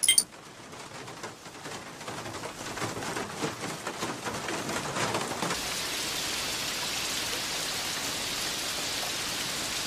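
A steady, even hiss like heavy rain, swelling over the first five seconds and then holding level.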